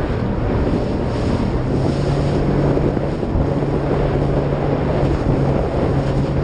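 Jet ski engine running steadily over water, with heavy wind noise on the microphone and the rush of choppy water.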